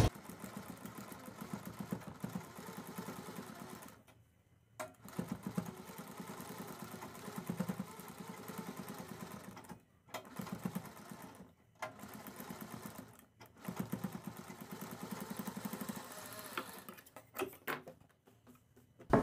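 DIYA sewing machine stitching piping onto fabric, running in several short runs with brief stops between them.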